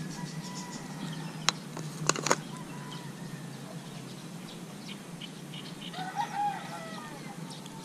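A chicken calls once about six seconds in, one short rising-and-falling call, over faint bird chirps and a steady low hum. Before it come a few sharp clicks from pliers and hook as a hook is worked out of a small fish.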